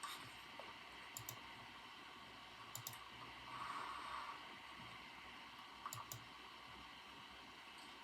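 Computer keyboard keys clicking sparsely, a few faint pairs of keystrokes a couple of seconds apart, over a soft steady hiss.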